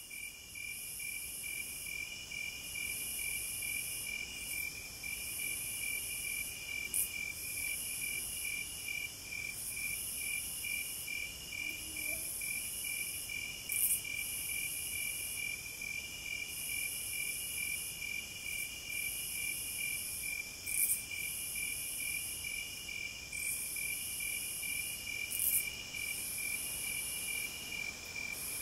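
Insects chirping in chorus: a steady fast trill, with a second trill that comes and goes and high-pitched buzzing bursts every second or two, and a few sharper high chirps standing out.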